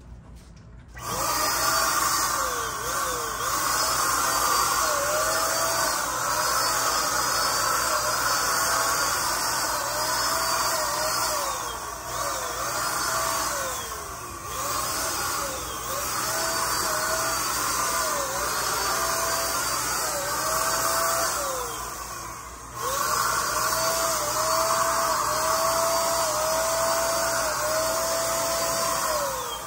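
Handheld electric paint sprayer running, starting about a second in, its motor note repeatedly swooping up and settling. It runs in long stretches with a few short breaks.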